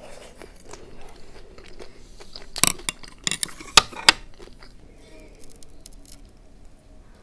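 A person eating close to the microphone: quiet chewing, with a cluster of loud, sharp, crisp crunches about two and a half to four seconds in.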